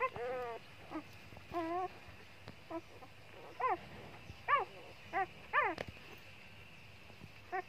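A litter of young puppies whimpering: about eight short, high whines, each rising and then falling in pitch. The loudest come a little past the middle.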